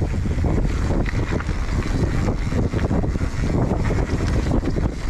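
Mountain bike riding over a dry gravel trail: wind buffets the microphone while the tyres crunch and the bike rattles with many small clicks and knocks.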